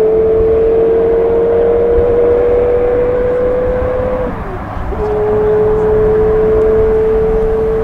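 Porsche Carrera GT's 5.7-litre naturally aspirated V10 at full throttle, accelerating away. Its high, steady engine note climbs slowly through one gear, dips at an upshift about four and a half seconds in, then climbs again in the next gear.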